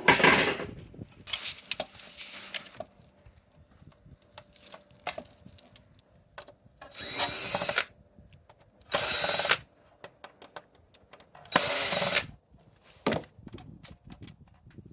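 Cordless power drill running in three short bursts about two seconds apart, driving screws out, with scattered clicks and knocks of handling between them.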